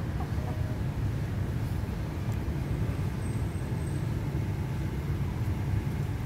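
Steady low outdoor rumble of background noise, with no distinct events.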